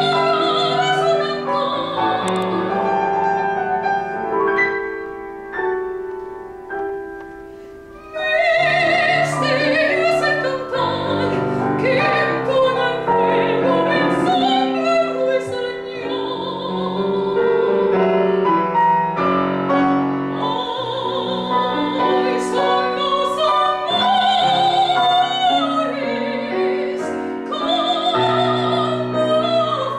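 A woman's operatic voice singing with wide vibrato, accompanied by a grand piano. The voice drops back for a few seconds about four seconds in, leaving mostly piano, then comes back in loudly about eight seconds in.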